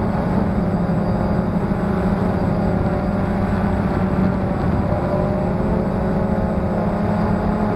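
Quadcopter's electric motors and propellers buzzing steadily in flight, heard through a camera mounted on the aircraft, with a constant low hum and rushing air.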